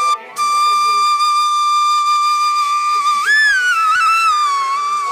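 Music: a single wind instrument plays a slow melody over a steady drone. It holds one long note, bends up about three seconds in, then slides back down.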